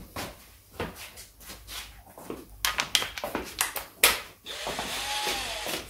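Metal tools and parts clicking and knocking on the bench, with a sharp knock about four seconds in, then a cordless impact driver on its low setting running for about a second and a half, its motor pitch rising and then falling, as it drives the clutch housing's Allen screws.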